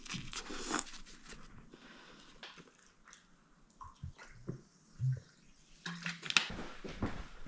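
A man biting and chewing food, then gulping soda straight from a large plastic bottle, with a few soft swallowing sounds.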